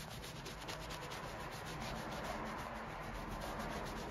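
Bristle brush scrubbing a leather work boot coated in soapy lather, in rapid back-and-forth strokes, several a second.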